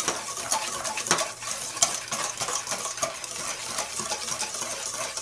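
Wire whisk stirring a dry flour mixture in a stainless steel bowl: a steady scratchy swishing, with occasional sharp clicks of the wires against the metal.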